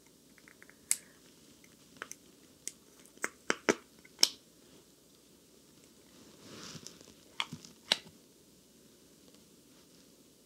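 Small red plastic makeup container being twisted open and handled: a string of short, sharp plastic clicks and snaps, most of them in the first half, with a soft rustle and two more clicks about two thirds in.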